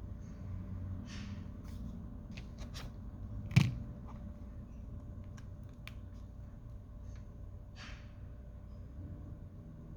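Handling noise: a few light clicks and two brief rustles, with one sharp tap a little past three and a half seconds in, over a steady low rumble.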